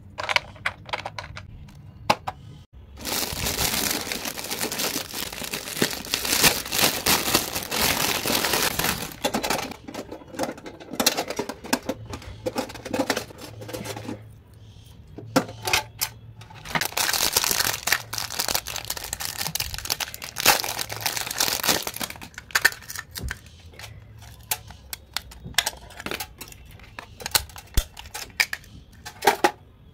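Hands handling small plastic stationery items: long stretches of crinkling and rustling, with sharp clicks and taps of small plastic pieces being handled and set in place between them.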